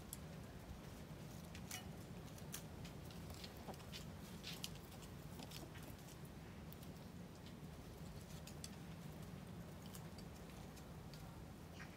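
Hens pecking and scratching at food on a dirt floor: scattered sharp taps, most of them in the first half, over a faint low steady hum.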